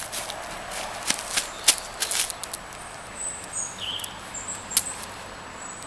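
Small birds chirping in short, high notes through the second half, after a run of scattered sharp clicks in the first half.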